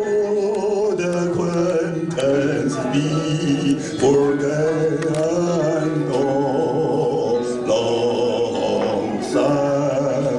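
Karaoke-style song performance: a man singing into a handheld microphone over backing music.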